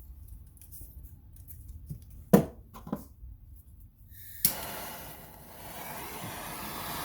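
A few light clicks and handling sounds, then about four and a half seconds in a plumbing torch lights with a sudden click and burns with a steady hiss, heating a copper pipe joint for soldering.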